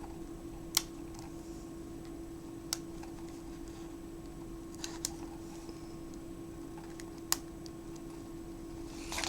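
A handful of small sharp clicks, a few seconds apart, from the tiny hooks of a compact digital camera's screen frame being pried and its small parts handled, over a steady low hum.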